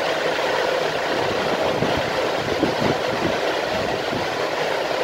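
Steady rushing background noise, without speech.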